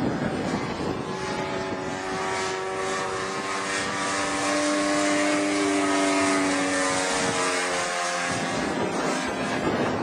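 Radio-controlled scale model L-19 Bird Dog's engine and propeller running steadily in flight. Its pitch falls slowly as the plane passes overhead, and it is loudest about midway.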